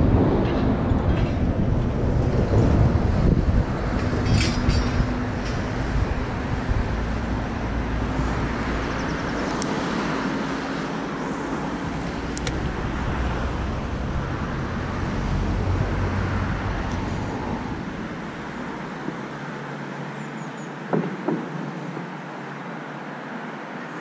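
Wind buffeting the microphone over a steady distant engine hum, both fading out about three-quarters of the way through. Two short knocks near the end.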